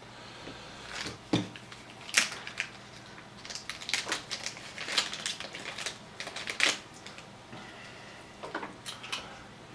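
Hard plastic clicks and snaps of an action camera's waterproof housing being handled, its back cover unclipped and swapped: a run of sharp, irregular clicks.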